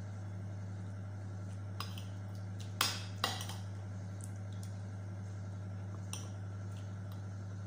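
Metal spoon and fork clinking and scraping on a ceramic plate while eating rice, a few separate clinks with the loudest pair about three seconds in. A steady low hum sits underneath.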